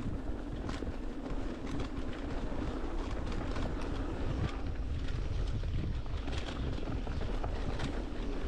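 Mountain bike riding down a dirt forest trail, heard close up: wind rumbling on the microphone and tyres rolling over the dirt, with many short clicks and rattles from the bike over bumps.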